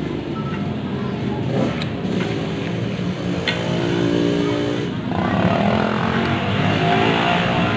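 A motor vehicle engine running steadily, its pitch shifting and its level rising about five seconds in.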